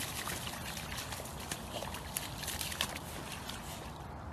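A dog rolling and wallowing in a muddy puddle: wet squelching and splashing with crackling clicks, easing off near the end.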